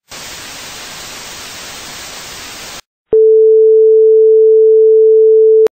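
An even hiss of static-like white noise for almost three seconds stops abruptly. After a short gap comes a loud, steady, single pure tone of middling pitch, like a test tone, lasting about two and a half seconds and ending suddenly with a click.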